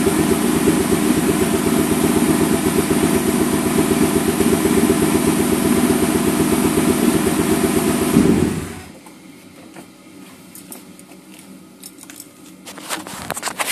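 2002 Mustang GT's 4.6-litre V8 idling with a bad misfire, then shut off about eight seconds in. The owner suspects cam timing out after a timing chain replacement, or a damaged cam or crank position sensor. Afterwards faint clicks and rustling, louder near the end.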